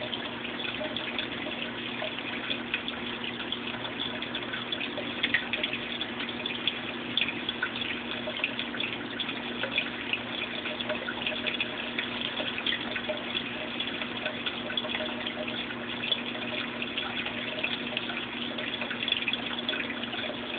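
Small aquarium's water circulation: a steady trickle of running water with fine crackling bubbles and a low steady hum underneath.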